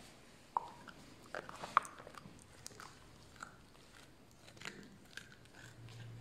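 Puppy gnawing a large bone, with irregular sharp crunches and cracks of tooth on bone, the loudest about two seconds in.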